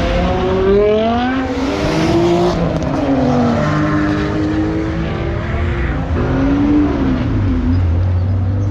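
Car engine revved hard over and over, its pitch climbing and falling several times, with a deeper steady engine note coming in near the end.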